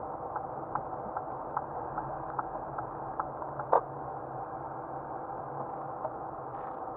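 Car driving over a snow-packed road, heard from inside the cabin: a steady engine and tyre drone with the turn-signal relay ticking about two and a half times a second. The ticking stops a little past three seconds in, and a single louder click follows shortly after.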